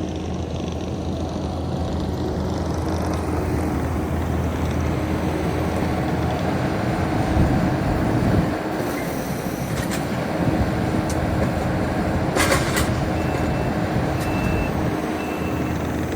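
Heavy diesel equipment engine running steadily under load, with a short sharp hiss or clatter about twelve seconds in and a few faint short high beeps after it.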